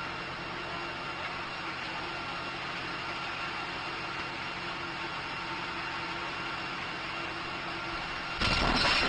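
Fire engine idling steadily, then, a little over a second before the end, a house exploding: a sudden loud blast that carries on as a loud, steady rush of noise.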